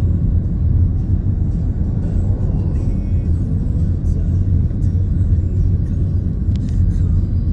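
Steady low road and engine rumble inside a moving car's cabin, with music playing underneath.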